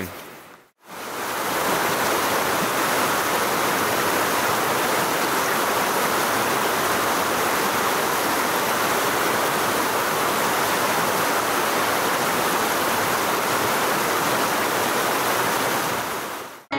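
Fast, riffled stream water rushing in a steady, even wash. It fades in after a brief drop about a second in and fades out near the end.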